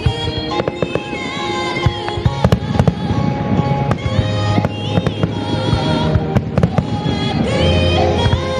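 Fireworks bursting over music, with many sharp bangs and crackles through the whole stretch, thickest in the middle.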